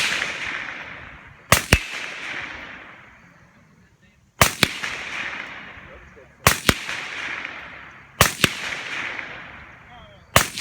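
Rifle fired in quick double taps, a pair of shots roughly every two seconds (four pairs, then another shot near the end), each followed by a long rolling echo.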